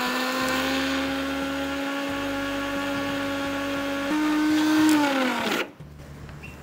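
Mixer grinder motor running steadily with a small steel jar grinding roasted spices and pottukadalai (roasted gram) to a dry powder. The pitch steps up about four seconds in. The motor is then switched off and winds down with a falling whine, stopping about five and a half seconds in.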